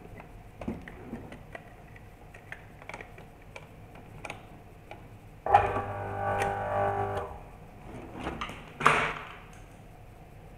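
Small clicks and knocks of hands on the pump's wiring. About halfway through, the water pump's electric motor hums steadily for under two seconds, starting and stopping abruptly. A sharp knock follows near the end.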